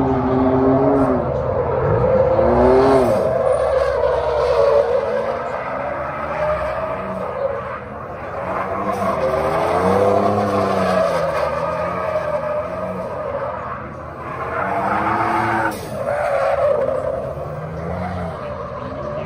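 Ford Raptor pickup drifting: its engine revs rise and fall over and over while the tyres squeal and skid on the asphalt.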